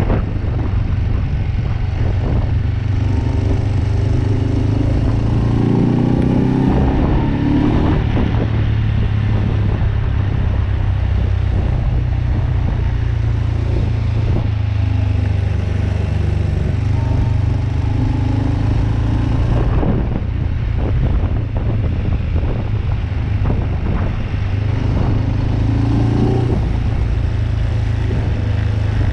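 BMW R27's 250 cc single-cylinder four-stroke engine running under way, its revs rising as it accelerates about five seconds in and again later on.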